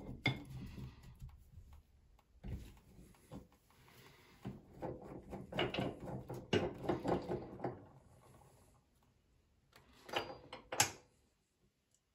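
Small clicks, scrapes and clinks of a metal tap spindle being unscrewed by hand from a basin tap and handled, with a couple of sharper knocks near the end as the parts are set down on the ceramic basin.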